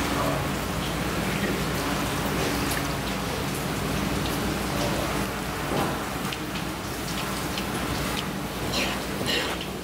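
Tap water running steadily over a cutting board, with a low steady hum beneath it. Near the end come a few short, sharp wet scrapes as a knife works over the fish guts.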